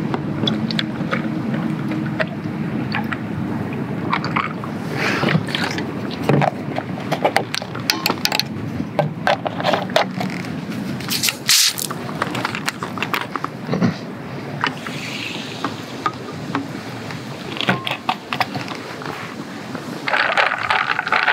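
Lemon sour concentrate poured from a plastic jug over ice in a glass, then clinks and knocks of ice, glass and bottles being handled on a table, with a short sharp hiss about midway.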